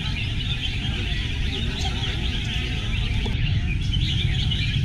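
Many caged red-whiskered bulbuls singing at once, a dense, unbroken chorus of overlapping chirps and warbles.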